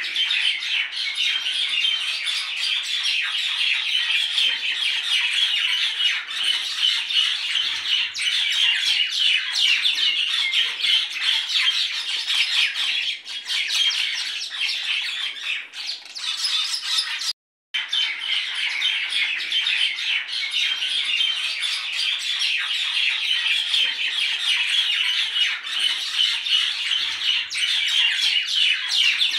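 A dense chorus of many small birds chirping and squawking without pause, dropping out completely for a moment just past halfway.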